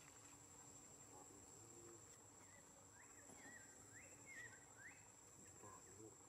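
Faint steady high-pitched insect drone. A few short chirping calls, rising and falling, come about two and a half to five seconds in.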